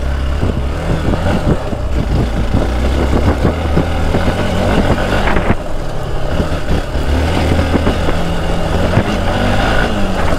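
A Hero XPulse 200 4V dirt bike's single-cylinder engine runs steadily while it is ridden along an off-road trail. Many small knocks and rattles are heard over the engine note.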